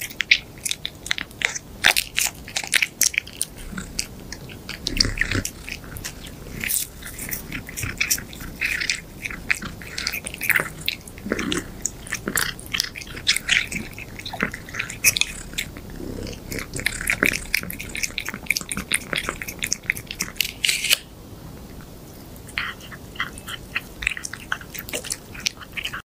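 A cat chewing and smacking at a treat held to its mouth: a dense, irregular run of small sharp clicks, with a short pause near the end.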